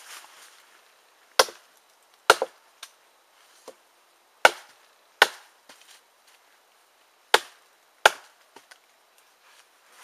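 Cold Steel Gurkha Kukri chopping into a small log, about six hard blows spaced unevenly a second or two apart, one of them a quick double strike, with a few lighter knocks between.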